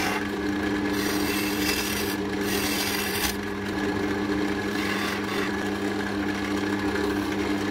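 Wood lathe running with a steady motor hum while a turning tool cuts the spinning oak handle, a rough scraping hiss. The cutting eases off after about three seconds, leaving mostly the lathe's hum.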